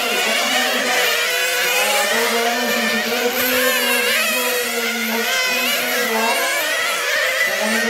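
Several 1/10-scale nitro (glow-fuel) RC touring cars racing. Their small two-stroke engines whine over one another, rising and falling in pitch as the cars brake and accelerate through the corners. A steady low hum runs underneath.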